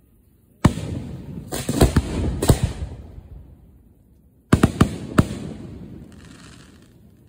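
Aerial firework shells fired from mortar racks close by, in two volleys. The first is a sharp report under a second in, followed by two more cracks. The second is a quick run of three reports past the middle. Each volley trails off in a rumbling echo.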